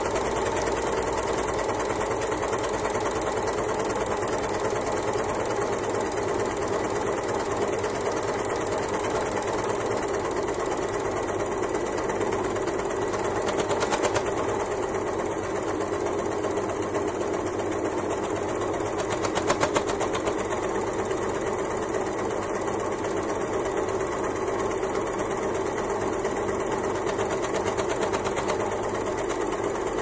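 Janome overlocker (serger) running steadily. It gets briefly louder twice, about halfway through and again a little later.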